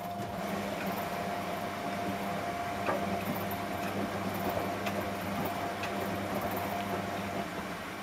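Two front-loading washing machines, a Samsung EcoBubble and a Whirlpool, running a fast wash cycle as their drums turn the wet laundry: a steady motor hum with a thin whine over it, and a few light knocks. The hum and whine drop away shortly before the end.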